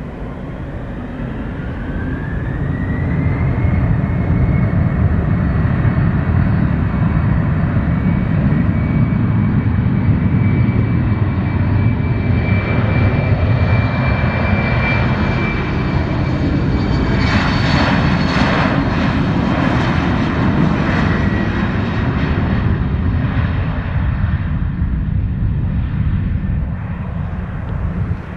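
Jet airliner's engines at high power: a whine rises in pitch over the first few seconds as the engines spool up, then holds steady over a loud, heavy rumble that lasts until it drops away near the end.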